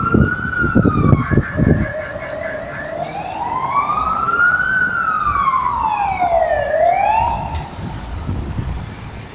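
Emergency-vehicle siren wailing, its pitch sliding slowly up and down in long rises and falls, then fading out near the end. A few low bumps on the microphone in the first two seconds.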